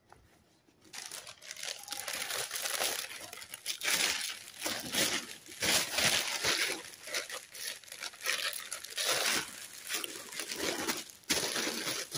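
Thin plastic packaging bag being crumpled and folded by hand, crinkling in irregular bursts. It starts about a second in and stops shortly before the end.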